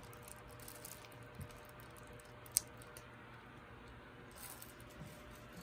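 A few faint, scattered clicks and light taps of small hard objects, the sharpest about two and a half seconds in, over a faint steady hum.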